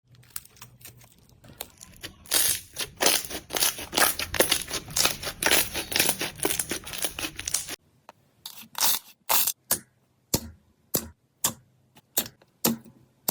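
Slime being squeezed and worked by hand, with dense crackling and sticky pops. About two-thirds of the way in it changes abruptly to separate sharp pops, about two a second.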